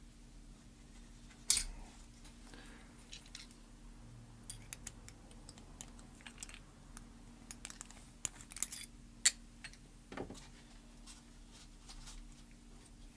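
Small metal tools clicking and ticking against a padlock's body and internals while the fixing screw is felt for. There is a sharp click about a second and a half in and another just after nine seconds in, with lighter ticks between.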